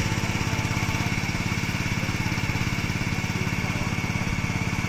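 Small engine running steadily with a fast, even beat and a steady high whine.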